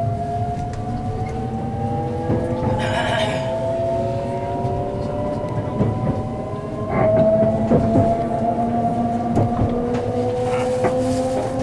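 681-series electric express train accelerating from a standstill, heard inside the passenger car: the inverter-driven traction motors give several whines that rise slowly and evenly in pitch. A short hiss comes about three seconds in, and wheel clicks over rail joints and points come in the second half.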